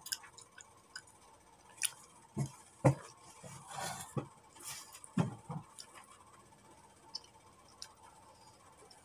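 Close-up wet chewing and mouth noises of someone eating a soft banana, with scattered small clicks and a few short, soft low thumps between about two and six seconds in.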